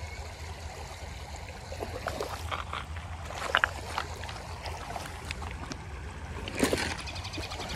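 Water splashing in a shallow creek as a hooked rainbow trout thrashes close in, over a steady rush of flowing water. There are a few short sharp splashes about three and a half seconds in and a louder one near the end.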